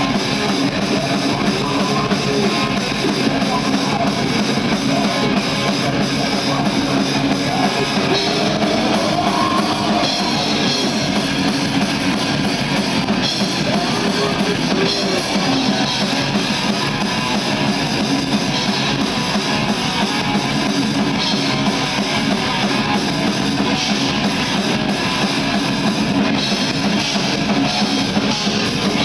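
Heavy metal band playing live at full volume: distorted electric guitar and bass over a pounding drum kit, steady with no break.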